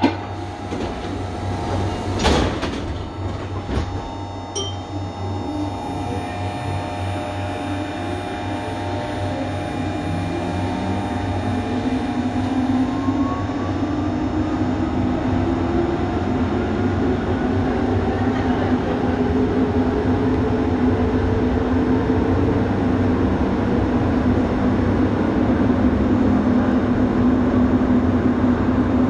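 Rubber-tyred metro train's sliding doors closing with a knock about two seconds in, then the train pulling away: the traction motor whine rises in pitch as it accelerates and settles into a steady drone as the train runs through the tunnel, getting louder.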